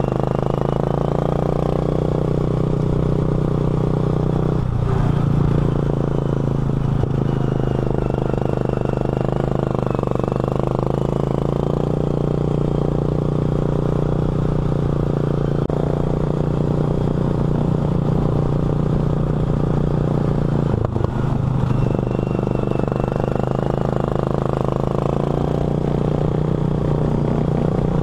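Racing lawn mower's engine running hard at steady high revs, heard from the driver's seat, with brief drops in engine speed a few times, about 5, 7 and 21 seconds in.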